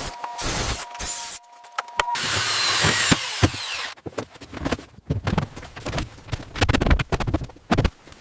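A quick run of power-tool and workshop sounds: a steady whining power tool for about the first two seconds, then a stretch of hiss, then a string of sharp, irregular knocks and clatter.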